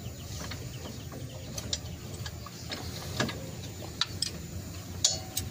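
Scattered light metallic clicks and ticks of a wrench working a brake caliper bolt behind the front hub, over a low steady background hum.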